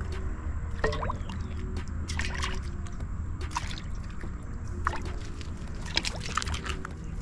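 Water trickling and splashing, with scattered light clicks and knocks as scaled fish are handled on concrete beside a metal bowl of water.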